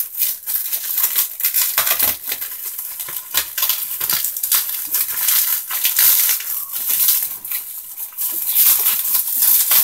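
Cardboard parcel being cut and worked open with a utility knife: a dense run of short scrapes, rasps and crinkles of packing tape and cardboard, with small knocks of hand and knife on the box.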